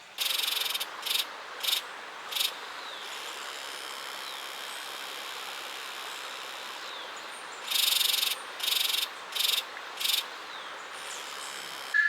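A night-singing insect calling in phrases of one long buzz followed by three short buzzes, the phrase heard twice. Under it runs a steady hiss of a night insect chorus.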